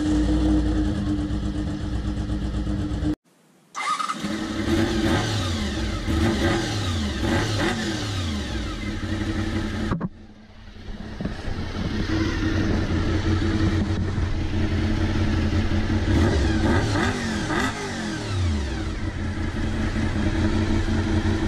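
Honda VFR400 motorcycle's V4 engine running, revved up and down in repeated blips between spells of steady running. The sound cuts out for about a second near three seconds in and drops briefly about ten seconds in.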